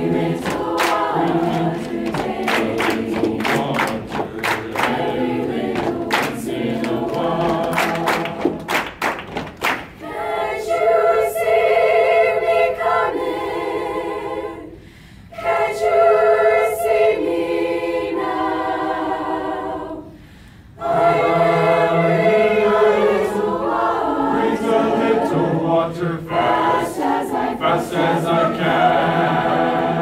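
Mixed high school choir singing a cappella. Over the first third the singing is backed by body percussion: hand claps and pats on the chest. After that the choir sings held chords, with two brief breaks.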